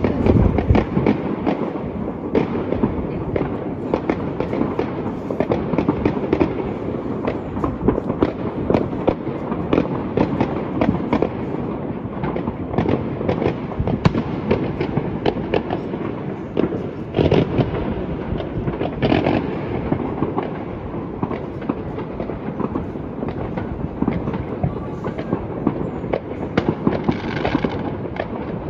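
Many fireworks and firecrackers going off at once, a dense, unbroken crackle of overlapping bangs and pops.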